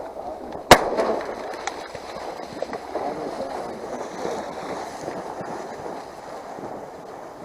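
A single shotgun shot about a second in, then a steady rushing background noise.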